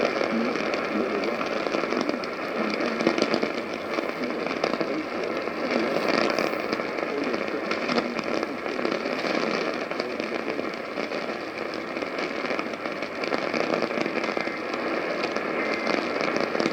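AM radio receiver hiss and crackling static from a weakly received station, with faint traces of the station's audio under the noise.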